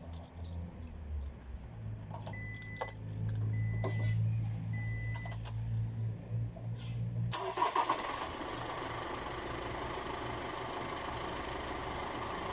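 Toyota Hiace Commuter Deluxe diesel engine running just after starting on a freshly fitted battery, with three short beeps and a few clicks a couple of seconds in. About seven seconds in, a steady rushing noise comes on suddenly and carries on.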